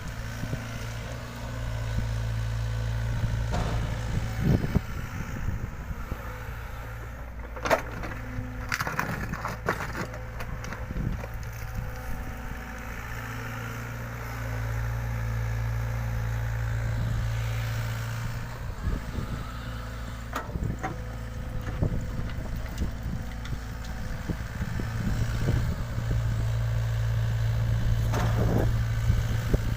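Mini excavator's diesel engine running steadily, rising in level for a few seconds at a time as the hydraulics work under load. Scattered knocks and rattles of the bucket working soil come through over it, most around a third of the way in.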